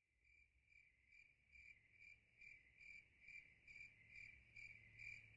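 Crickets chirping faintly in a steady, even rhythm of about two chirps a second.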